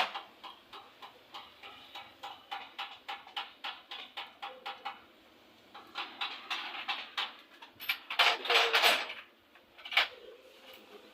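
Workshop tool noise: a run of light, evenly spaced clicks, about three a second, then more clicks, a louder rasping burst lasting about a second some eight seconds in, and one sharp click near the end.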